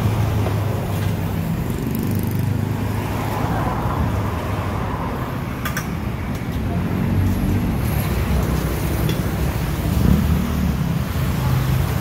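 Steady low rumble of street and shop background noise, with a short click about six seconds in.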